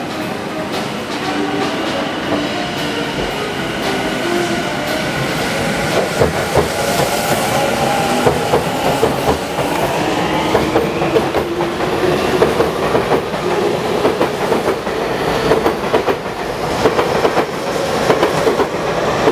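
Tokyu 5050 series (4000 subseries) electric train pulling out of a station. Its traction motors whine and rise in pitch as it gathers speed, and the wheels clack over rail joints, growing louder as the cars go past.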